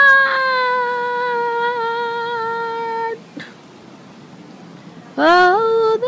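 A person's voice humming or singing a long held note. It falls slightly in pitch and stops about three seconds in. Near the end a second note slides up and holds.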